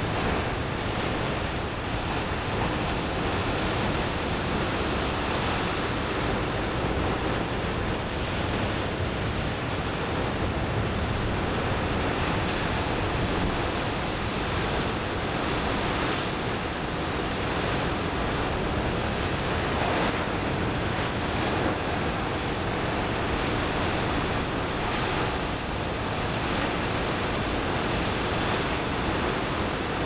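Ocean surf: a steady rush of breaking waves and moving water, swelling gently in level.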